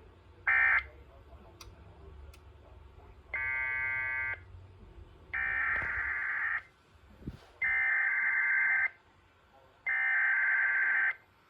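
Emergency Alert System (SAME) digital header tones on a NOAA Weather Radio broadcast, marking the start of a new alert. A short loud burst comes about half a second in, a burst of several stacked tones about three seconds in, then three data bursts about a second long with about a second between them.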